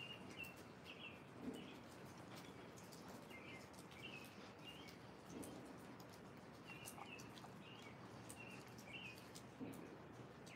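Near silence with a small bird chirping faintly in short, repeated calls over a light steady hiss.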